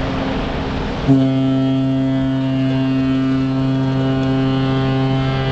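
Cruise ship's deep horn starting a long, steady blast about a second in, after a brief gap of rushing noise.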